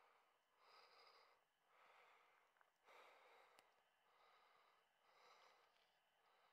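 Near silence, with only very faint, soft puffs of sound repeating about once a second.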